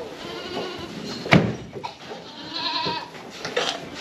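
Several goats bleating, with one sharp knock about a second and a half in.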